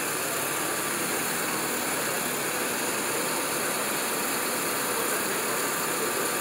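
Lift-and-carry tow truck's engine running steadily, driving the crane that lowers a car in wheel slings onto the truck's deck.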